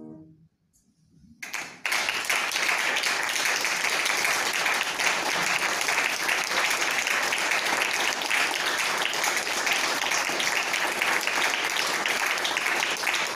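The last note of a song dies away, and after about a second of silence an audience starts applauding, steady clapping that keeps going.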